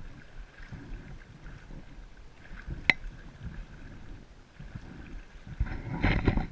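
Jet ski engine idling low while the craft creeps along, with a sharp knock about three seconds in and a brief louder burst near the end.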